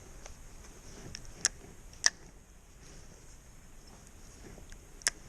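Three sharp, brief clicks, about one and a half, two and five seconds in, with a few fainter ticks, over a faint steady background hiss.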